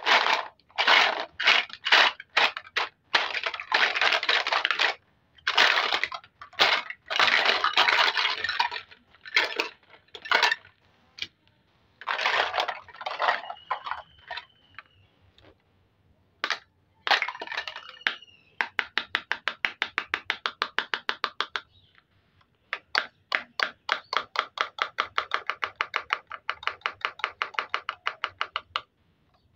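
Plastic toy fruits and vegetables clattering and rattling as they are handled and tipped out of a plastic basket, then a rapid, even ticking, about ten ticks a second, as a plastic toy knife saws through a velcro-joined toy fruit on a plastic cutting board.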